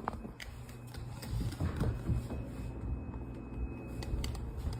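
A dog's claws clicking irregularly on a hard floor as it moves about.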